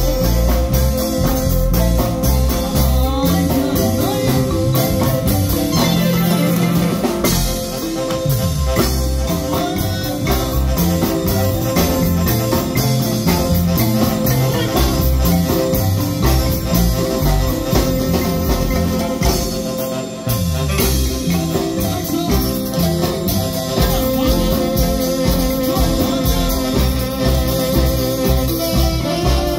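Marimba band music played loud and steady, with the marimba's rippling tremolo on a held note over a walking bass and percussion.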